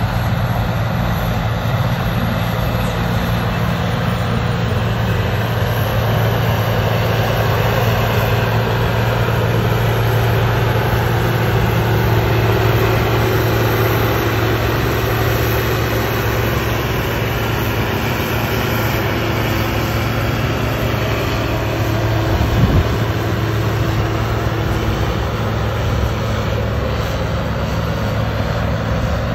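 New Holland TM190's six-cylinder diesel running steadily under full load as the tractor pulls a weight-transfer sled, with one short knock about three-quarters of the way through.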